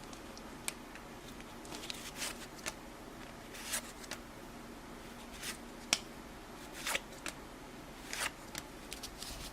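1984 Topps hockey cards being handled and flipped through: soft, irregular swishes and light clicks of card sliding against card.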